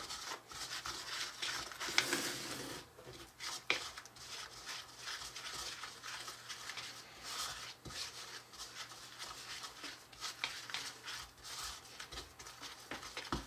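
Small wooden spoon stirring and scraping gritty, damp frosting mix around a small plastic bowl, in repeated short strokes.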